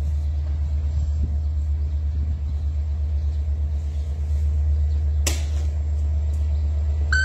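Steady low rumble of an approaching diesel locomotive, with a single sharp click about five seconds in and a brief high tone at the very end.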